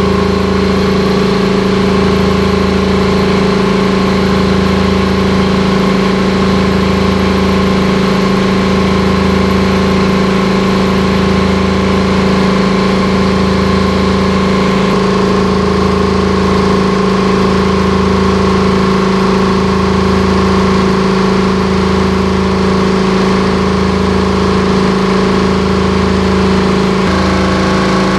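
Reconditioned Hamworthy V250 main air compressor running on test: a loud, steady machine drone with a strong low hum and a slow, regular throb underneath. Its tone shifts slightly about halfway through and again near the end.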